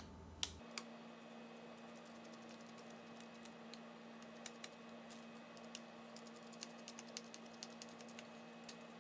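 Faint, irregular small clicks and ticks of fingers and a small screwdriver working on the screws and parts inside an opened laptop.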